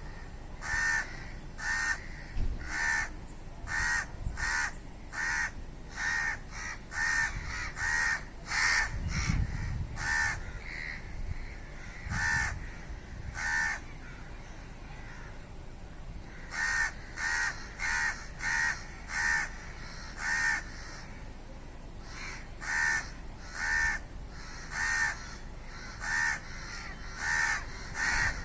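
Crow cawing over and over in short, harsh caws, roughly one to two a second. The calls break off for a couple of seconds around the middle, then start again.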